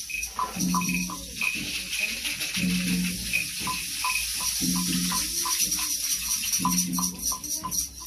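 Rainsticks and hand shakers rattling together in a continuous hiss, imitating rain. A low pitched tone comes back about every two seconds, and short higher blips come in between.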